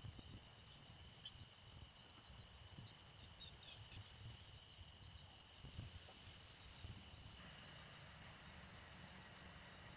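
Faint outdoor ambience of insects trilling steadily at a high pitch, over a low, uneven rumble.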